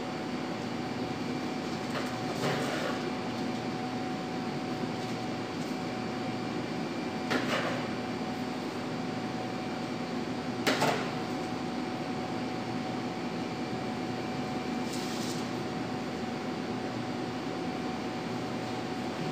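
Steady machine hum with two constant tones, broken by a few short knocks and clatters as sandwiches are cut and handled on a counter. The sharpest knock comes about eleven seconds in.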